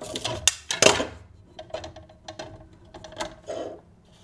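Metal fletching jig and clamp being handled on a wooden bench: a quick run of clicks and light metallic knocks in the first second, then softer scattered clicks and handling rustle.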